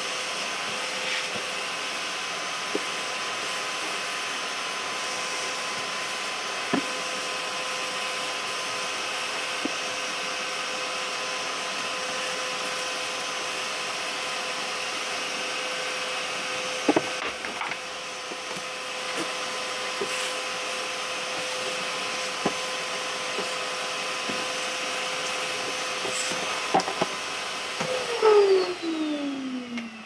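2B 18-litre wet and dry shop vacuum running steadily with its bare hose sucking up sawdust, with occasional clicks. Near the end it is switched off and its motor whine falls as it winds down.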